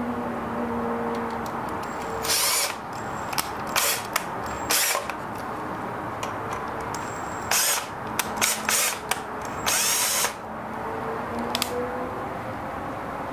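Cordless electric screwdriver driving a small screw into a metal faceplate, run in a series of short bursts from about two seconds in to about ten seconds in.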